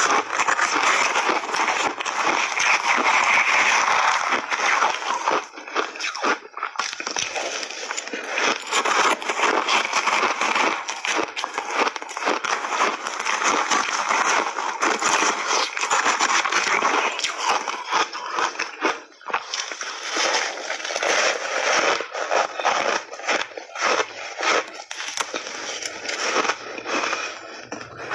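Close-up crunching and chewing of crunchy pink berry shaved ice coated in milk powder, a dense run of crackling crunches with brief pauses about six and nineteen seconds in.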